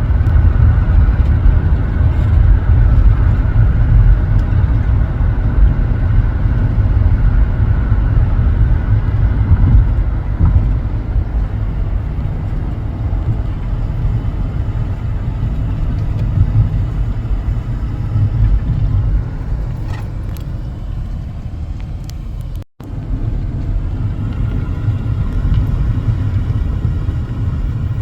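Car on the move: a steady, loud low rumble of road and engine noise, easing somewhat after about ten seconds, with a brief cut-out about three-quarters of the way through.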